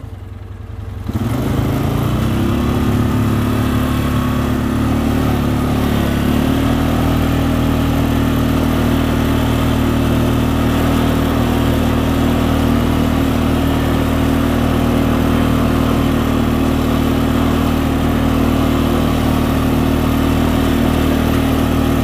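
Polaris Sportsman ATV engine picking up about a second in and then running steadily under load on a climbing snowy trail, its note shifting slightly about six seconds in and then holding even.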